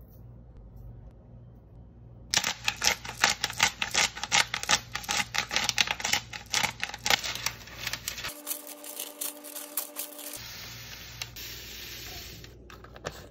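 Handheld black pepper grinder being twisted over parchment paper: a rapid, uneven run of crunching clicks lasting about six seconds. Near the end, a soft steady hiss as the spice rub slides off the parchment into a bottle.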